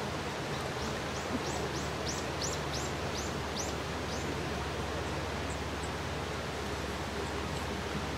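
A bird calling a quick run of about ten high notes in the first half, each sliding down in pitch, over a steady rushing noise.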